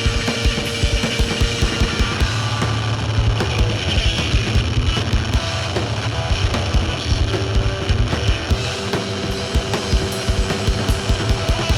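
A loud rock band playing live in a heavy punk/metal style: distorted electric guitar and bass over fast, steady kick-drum strokes.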